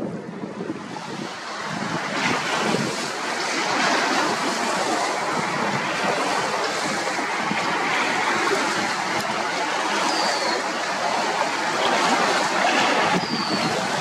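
High wind gusting across the microphone over choppy lake water washing and lapping, building up in the first few seconds and then holding strong.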